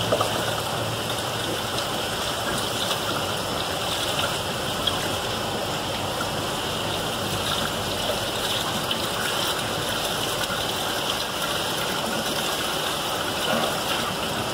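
Tap water running steadily from a faucet over a plucked, gutted poultry carcass and splashing into a stainless steel sink as the bird is rinsed by hand.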